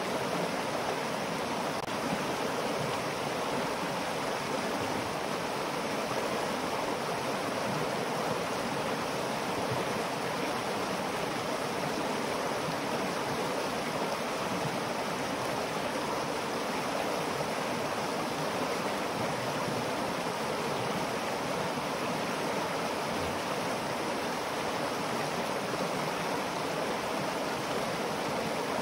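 Shallow, rocky stream rushing over stones in small rapids: a steady, unbroken rush of water.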